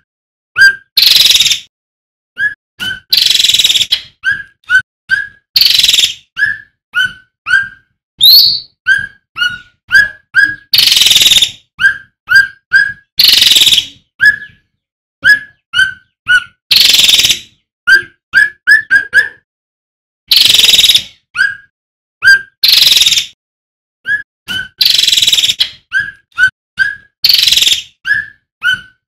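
Male cucak ranting (cucak rante) singing: quick runs of two to four short clear whistled notes, alternating with harsh rasping bursts about a second long, repeated phrase after phrase.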